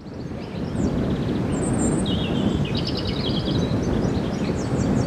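Several songbirds singing in short trills and repeated chirps over a steady low rumble of wind on the microphone. The sound fades in at the start.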